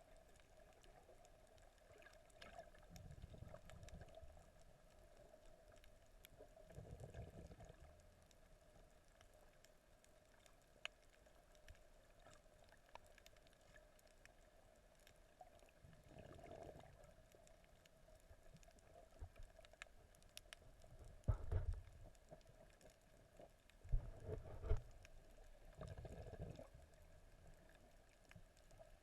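Faint, muffled water sounds heard underwater: a steady low hum with several brief low surges of moving water, the loudest two about three-quarters of the way through.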